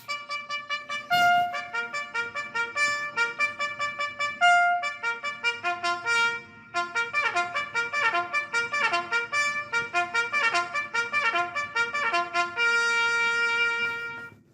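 Trumpet playing a quick run of short, repeated notes in a military-style fanfare, breaking off briefly about six seconds in and ending on one long held note.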